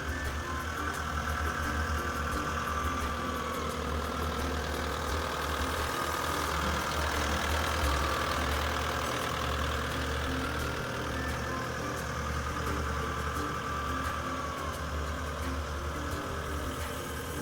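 Diesel engine of a 2016 Cat 232D skid steer idling steadily.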